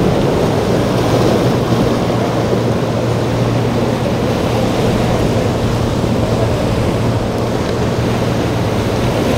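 Boat engines running with a steady low hum, mixed with waves and wind buffeting the microphone.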